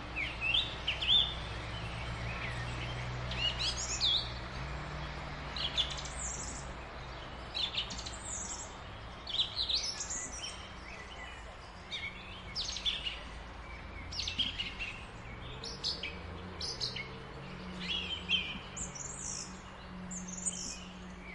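Birds chirping and calling in many short, quick chirps throughout, over a faint low steady hum.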